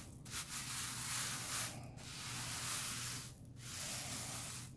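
Loose rhinestones scratching and rattling across a rhinestone template as a bristle rhinestone brush is swept over them in circles, in long sweeps with brief pauses between.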